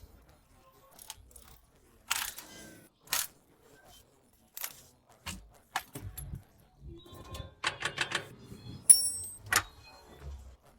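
Scattered metallic clicks, knocks and clinks of tools and parts being handled during e-rickshaw wheel brake (band) repair. About two-thirds of the way in there is a quick run of clicks, and just after it a sharp, ringing metal clink, the loudest sound here.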